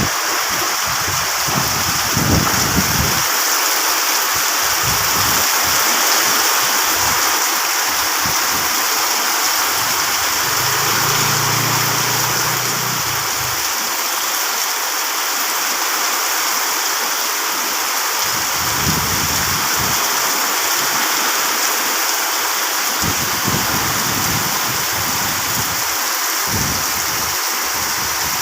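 Heavy rain pouring steadily in strong wind, with gusts rumbling against the microphone now and then.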